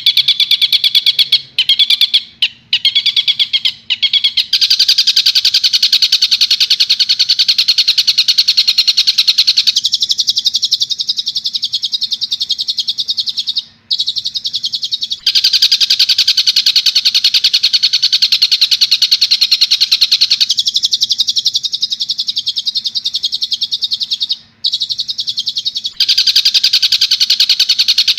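Recorded tengkek buto bird calls for song training: a loud, rapid, continuous chatter of fast repeated high notes, in bouts that switch every few seconds between a fuller pattern and a thinner, quieter one, which fits the recording's alternation with long-tailed shrike (cendet) calls. A faint steady hum lies underneath.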